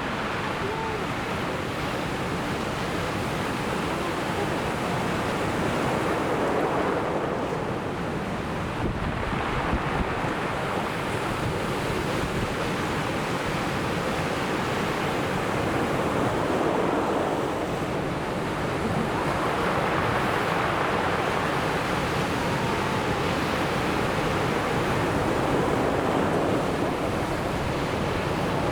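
Ocean surf breaking on a beach: a continuous rush of waves that swells and eases every few seconds as each wave comes in.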